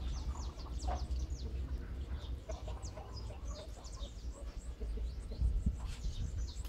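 Chickens foraging: many short, high chirps that fall in pitch come in quick succession, with a few softer clucks, over a steady low rumble.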